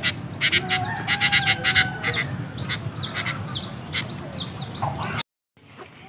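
Sharp clicks and snaps of dry twigs being cut with a small hand cutter, with birds giving short, falling chirps over and over. The sound cuts out abruptly near the end.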